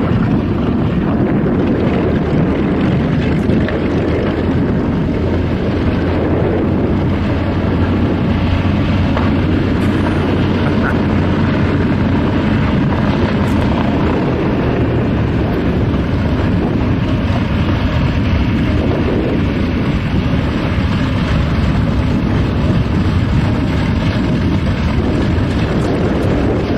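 Steady drone of a propeller airliner's piston engines, a deep even hum under a rushing noise, with no change in pitch or level.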